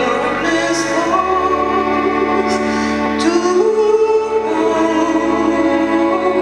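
Live orchestra with strings playing slow, held notes while a female vocalist sings long sustained lines, the melody moving to new notes about a second in and again around three and a half seconds in.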